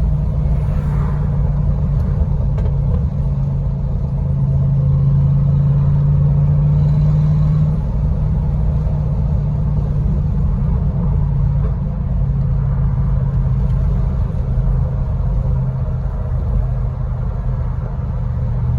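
Cadillac Escalade exhaust with the muffler deleted, the engine running with a steady low drone that drops slightly in pitch about halfway through.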